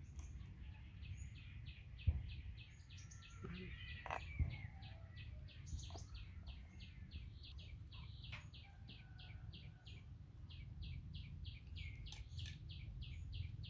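A bird chirping in a fast, even series, about four short chirps a second, over a low outdoor rumble. A cleaver chops into a green coconut with two sharp knocks, about two and four seconds in, the loudest sounds.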